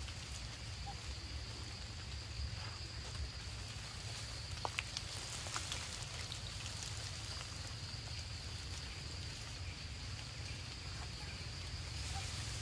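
Forest ambience: a steady high-pitched insect drone over a low rumble, with a few faint clicks and snaps about five seconds in.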